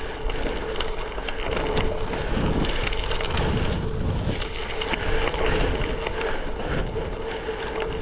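Wind buffeting an action camera's microphone over a gravel bike's tyres rolling and crunching on a gravel double track, with scattered small clicks and a steady hum.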